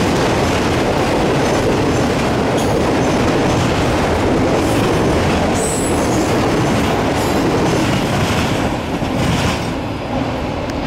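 Freight train of enclosed autorack cars rolling past: a steady rumble and rattle of steel wheels on rail, with a brief high wheel squeal about halfway through. It eases a little near the end.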